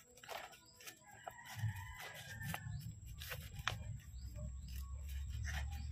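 A faint drawn-out animal call, held for about a second around two seconds in, over scattered sharp clicks and a low rumble.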